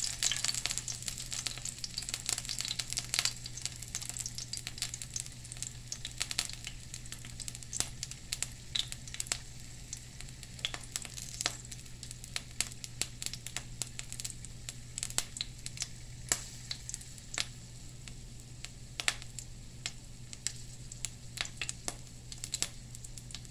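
Olive oil sizzling and spitting with scattered sharp pops around two brown anoles frying in a pan, the burner already switched off so the oil is frying on its stored heat. A low steady hum runs underneath.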